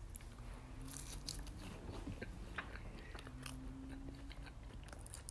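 A person chewing crispy fried potato skins with the mouth closed, giving faint scattered crunches and wet mouth clicks.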